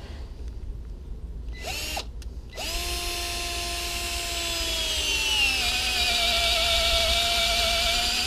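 Milwaukee cordless drill with a spade bit boring a hole through a wooden plank. A short burst about two seconds in, then a steady motor whine that drops a little in pitch about five seconds in and keeps running.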